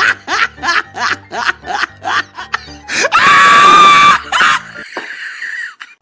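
Edited-in comic laughter over background music: short bursts of laughter in a quick, even rhythm. About three seconds in comes a loud, high-pitched held note lasting about a second, then fainter sound.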